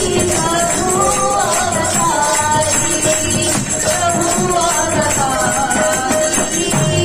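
Devotional song (kirtan) sung by a group of voices into microphones, with steady metallic jingling percussion and hand clapping keeping the beat.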